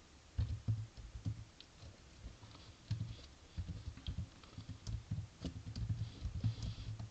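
Computer keyboard typing: irregular keystrokes coming in short runs.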